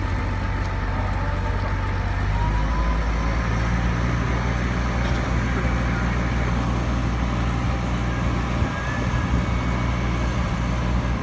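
A mobile crane truck's diesel engine running steadily, raising its revs about two seconds in as the crane works the lifting wires, then easing off near the end.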